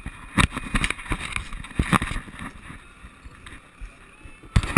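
Water sloshing against the hull of a small fishing boat, with irregular knocks and thumps.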